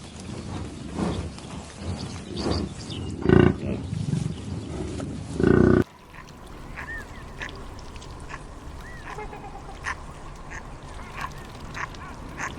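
Animal calls from two recordings spliced together. In the first, loud calls stand out twice over a noisy background. After an abrupt cut about halfway through comes a quieter recording of short, high calls that rise and fall.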